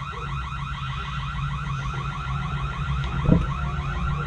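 A high chirp repeating steadily about five times a second, like an alarm, over a low hum, with a single knock about three seconds in.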